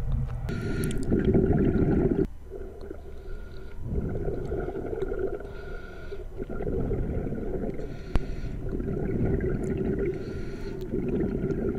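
Muffled underwater sound picked up by a camera below the surface while snorkelling: a low rushing rumble of moving water that swells and eases every two to three seconds, with a faint steady whine above it.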